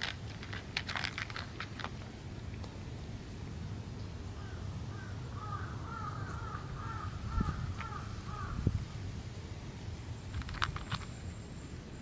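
An animal calling in a quick series of about a dozen short, repeated notes, lasting about four seconds from about four seconds in, over a steady low rumble. Sharp clicks come near the start and again near the end.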